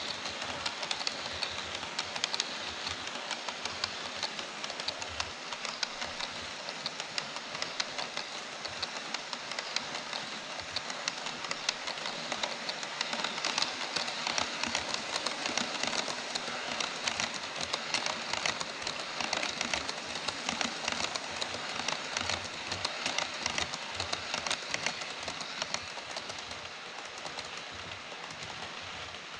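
HO-scale model freight train of Taki 43000 tank wagons and Koki 104 container wagons rolling past on Kato Unitrack, the wheels making a fast, dense, steady clatter. It eases off a little near the end as the last wagons go by.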